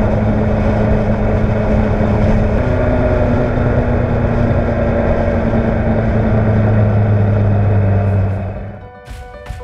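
Motorcycle engine running steadily at cruising speed with wind and road noise. About 8.5 s in it fades out and background music with a beat begins.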